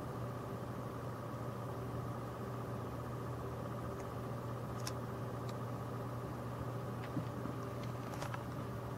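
Steady whir and hum of a desktop PC's cooling under full graphics load: the Gigabyte Radeon HD 7870 OC's three-fan cooler spinning at its auto speed, with a low constant hum and a few faint clicks.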